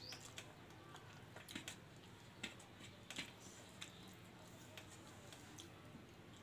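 Faint sounds of a person eating rice by hand from a steel plate, with scattered soft clicks of chewing and of fingers working the food on the plate.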